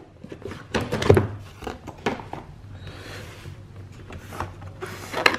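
Cardboard retail box being opened by hand: its outer sleeve is slid off and the lid lifted, giving rustling, scraping and a few light knocks.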